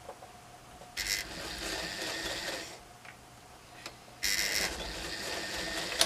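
Electric sewing machine stitching through layers of fabric and batting in two runs: the first starts about a second in and stops before halfway, the second starts about four seconds in.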